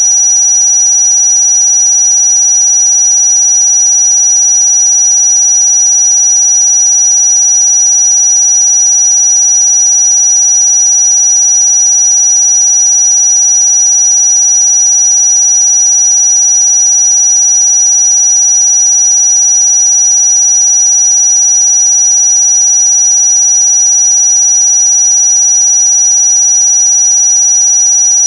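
Loud, unchanging electronic tones: several pure tones held together, the loudest very high-pitched with a weaker middle tone beneath, a synthetic tone track meant to annoy noisy neighbours.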